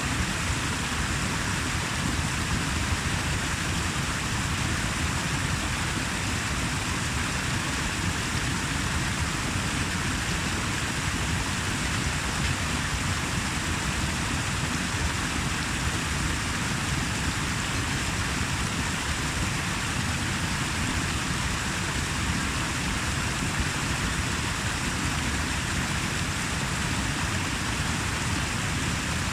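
Steady rushing of running water, an even noise with no let-up or separate splashes.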